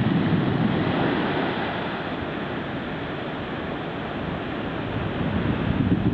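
Ocean surf breaking and washing up onto a sandy beach, a steady hiss of foam, with wind buffeting the microphone. The wash eases in the middle and builds again near the end.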